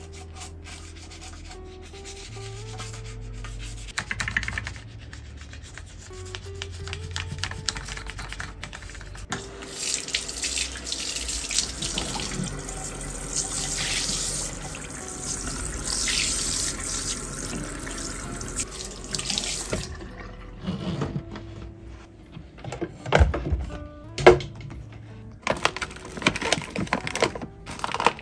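Water from a lever tap running into a washbasin for about ten seconds, starting about a third of the way in, while a toothbrush is rinsed under it, then stopping. Before it, a toothbrush scrubbing around the sink drain; near the end, a few knocks as things are set into a cabinet. Background music throughout.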